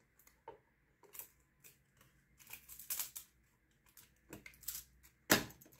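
A plastic LED lamp base and its acrylic diamond-painting panel being handled: scattered light taps and scrapes, a short rustle about halfway, then a sharp click near the end as the panel is pushed into the slot of the base.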